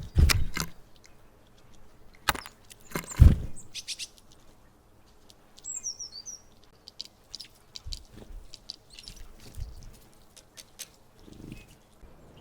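Great tits at a feeder, with many short sharp taps and clicks of birds pecking and handling food. Loud low thumps come near the start and about three seconds in. A brief cluster of high chirping call notes comes about six seconds in.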